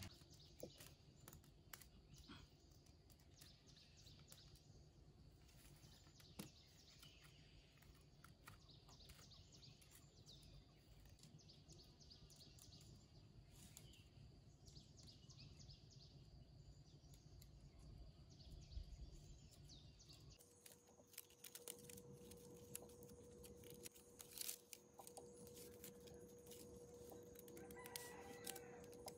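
Near silence: faint rural background with scattered light clicks from bamboo strips being handled and a few faint chicken and bird calls.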